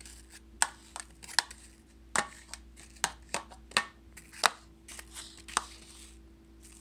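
Spoon clicking and knocking against a bowl in irregular sharp taps, about a dozen, as apple wedges are stirred.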